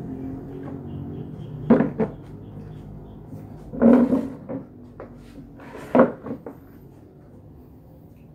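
Three loud wooden-sounding knocks about two seconds apart, with smaller bumps between them: a chair being moved at a dining table and sat in.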